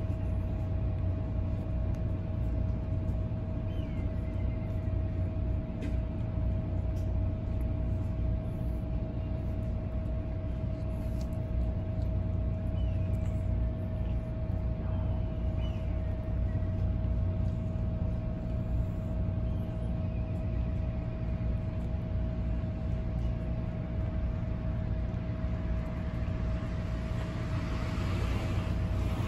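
Steady low rumble with a constant hum underneath, with a few short, high, falling chirps here and there. Near the end, stray cats crunching dry kibble grows louder.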